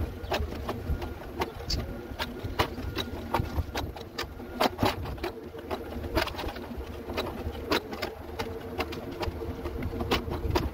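Sped-up, fast-forwarded sound of a mobility scooter ride: a steady motor hum with a constant low rumble and many rapid, irregular clicks and knocks from the scooter jolting along.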